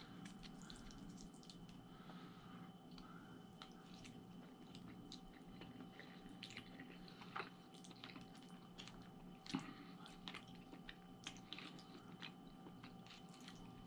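Faint chewing of a mouthful of spaghetti, with small scattered clicks of a plastic fork against the takeout food tray and a couple of louder clicks midway.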